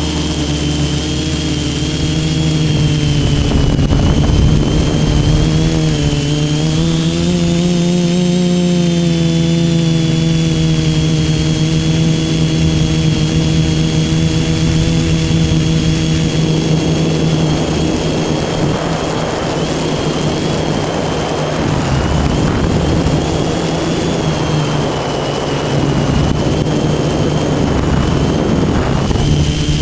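Motors and propellers of an RC multirotor, heard from its onboard camera: a steady buzzing whine that rises and falls slightly in pitch with throttle. From about halfway through to near the end a rushing noise joins it.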